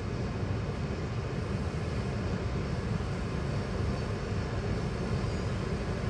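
Steady low rumble of a car idling, heard from inside its cabin.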